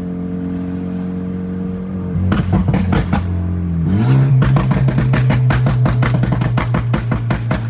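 Background music: sustained bass notes, joined about two seconds in by a fast, steady drum beat.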